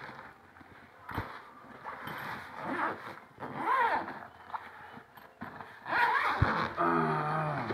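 Packaging being ripped open: scratchy tearing of tape and plastic, with squealing streaks about halfway through and near the end, and two sharp knocks.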